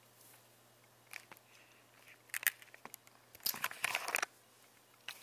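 Handling noise from the recording camera being grabbed and moved: scattered rustles and clicks, the loudest cluster a little before the end, over a faint steady hum.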